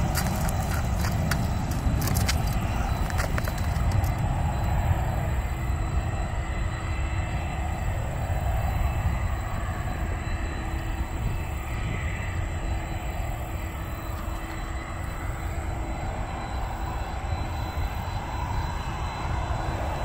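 Jet airliner engines heard at a distance: a steady low rumble that eases somewhat in the second half.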